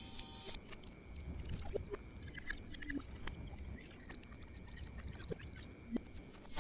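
A short electronic mobile-phone tone at the start, then faint swallowing and sloshing as a man drinks from a bottle, over a low hum.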